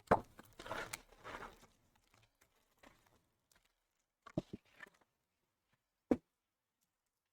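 Handling of trading cards and their packaging on a table: a sharp tap, a brief rustle of wrapper or cardboard about a second in, then a few light clicks and one sharp knock near the end.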